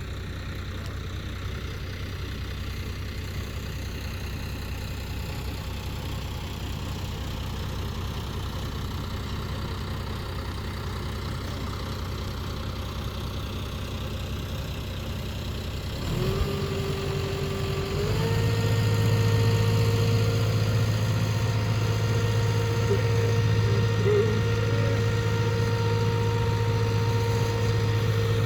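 Boat engine running steadily at idle, then speeding up about sixteen seconds in and again about two seconds later, holding a louder, higher steady note: a test run after cloth scraps were cleared from the propeller.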